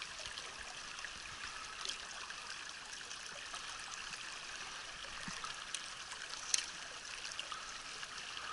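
Mountain stream, the North Fork of the Tongue River, rushing steadily over rocks, with a few faint ticks and one sharper click about six and a half seconds in.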